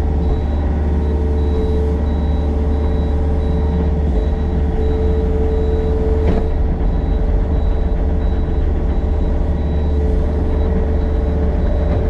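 Yanmar excavator's diesel engine running steadily under working load, with a steady hydraulic whine over it. There is a single knock about six seconds in.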